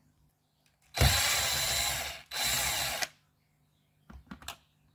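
Electric screwdriver backing out screws, running in two bursts: one of just over a second, then a shorter one. A few light clicks follow near the end.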